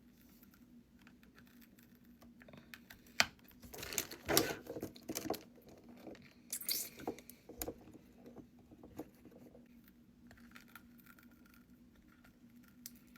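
Biting and crunching through the hard candy shell of a jumbo fruit gumball, close to the mouth: a sharp crack about three seconds in, then irregular bursts of crunching and chewing for several seconds, thinning out to faint chewing.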